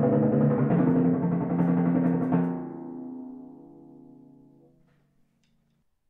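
Yamaha 8300 timpani rolled with cork-core Luft Mini Badass mallets, changing to a new note just under a second in. The strokes stop about two and a half seconds in, and the drums ring on, fading out over the next two to three seconds.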